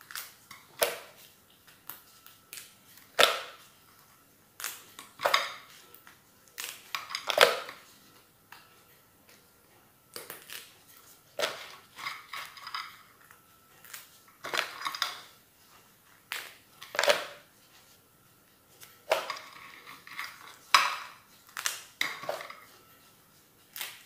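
Steamed sea crabs handled in plastic-gloved hands: hard shells clicking and clattering as they are picked off a plate and packed into a plastic tub, in irregular knocks and short scrapes every second or so.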